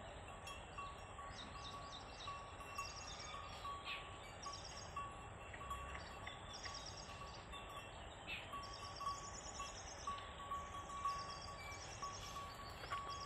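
Faint open-field ambience with short, rapid high-pitched trills recurring every second or so, over a steady thin tone and light hiss.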